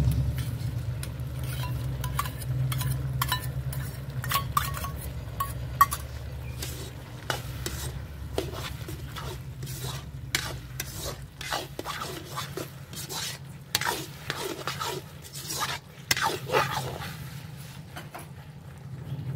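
Perforated steel skimmer stirring and scraping onions and capsicum in sauce around an iron kadai: repeated, irregular metal-on-metal scrapes over a low sizzle, getting busier about seven seconds in. In the first few seconds a spoon clinks lightly against a steel bowl as the ketchup is scraped out.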